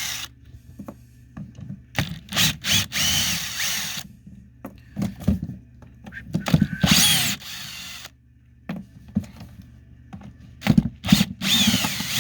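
Power drill/driver running in several short bursts, its motor whine rising and falling in pitch as it backs out the screws holding the rear cover of a nail gun.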